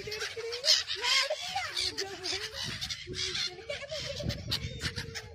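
A flock of gulls calling in many overlapping short squawks, with people's voices mixed in.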